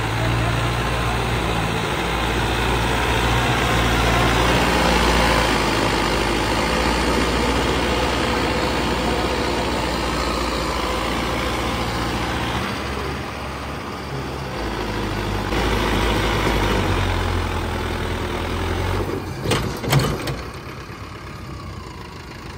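Mahindra Arjun Novo 605 tractor's diesel engine, fitted with a turbo and a modified fuel pump, running under load as it pulls a spring-tine cultivator through soil. The engine note shifts a few times. A couple of sharp knocks come near the end.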